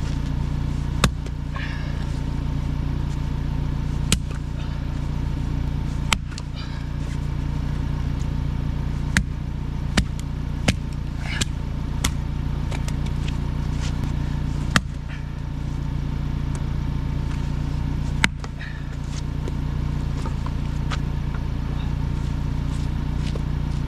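Hatchet splitting a round of firewood into kindling: about nine sharp cracks of the blade striking and splitting wood, irregularly a few seconds apart, over a steady low motor hum.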